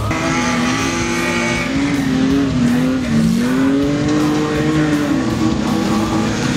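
Racing stock-car engines revving hard, their pitch rising and falling as the drivers accelerate and lift off.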